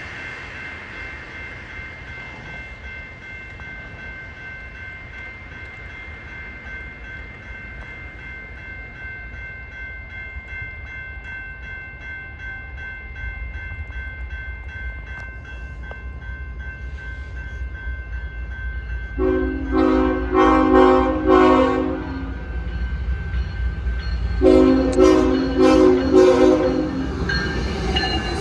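Rumble of an approaching freight train growing louder. Then the horn of the lead locomotive, a KCS ET44AC, is played in two bursts of quick stuttering blasts: one about two-thirds of the way in and one a couple of seconds later.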